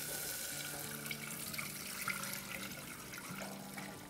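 Water poured from a jug into a pot of hot oil and spice paste, a steady splashing pour that fades away near the end.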